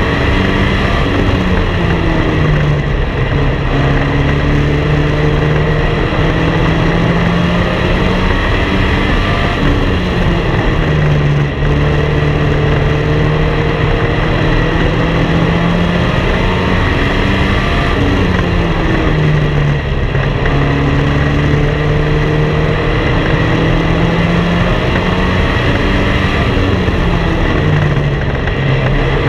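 Race car engine at racing speed, heard from on board. Its note dips briefly and climbs again roughly every eight seconds as the car laps a short paved oval, with steady road and wind noise underneath.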